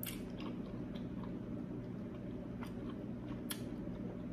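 A person chewing seafood close to the microphone, with a few faint, short mouth clicks.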